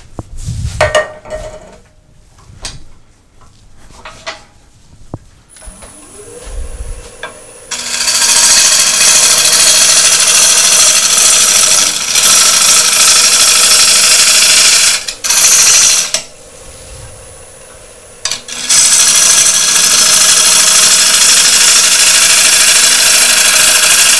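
A few knocks of tool handling, then a wood lathe spins up about six seconds in and its motor hum rises to a steady pitch. A freshly sharpened half-inch gouge then cuts the spinning wooden bowl blank, a loud continuous shearing of wood. It breaks off briefly twice, and only the lathe's hum is heard in the gaps.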